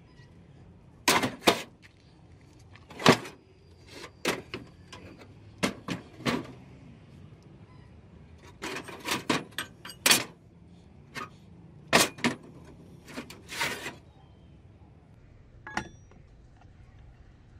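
Rusty scrap iron pieces knocking and clanking against each other as they are moved about by hand in a wooden crate, with irregular separate knocks, the loudest about three seconds in and again about twelve seconds in.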